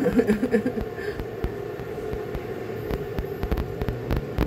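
Chicken broth simmering in a stainless steel pot on an induction cooker: a steady hum with many small, irregular bubbling pops.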